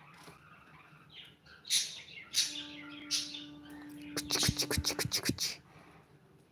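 A talkative bird calling: three separate high chirps, then a quick run of about ten sharp notes a little past halfway through.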